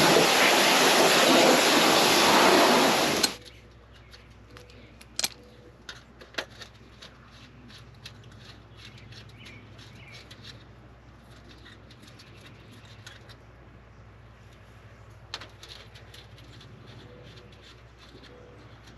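Pressure washer spraying hard, cutting off suddenly about three seconds in. Then a much quieter stretch with a few sharp knocks and faint bird cooing.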